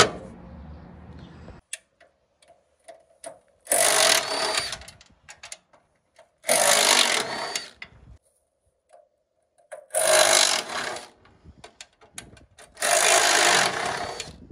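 Cordless impact driver backing screws out of a sheet-metal electrical enclosure, run in four bursts of about a second each, with small clicks of handling between them.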